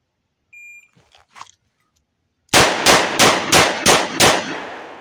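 Shot timer beep, then six rapid .357 Magnum revolver shots from a Taurus 692 firing 125-grain loads, about a third of a second apart, starting about two seconds after the beep. The report rings on and fades after the last shot.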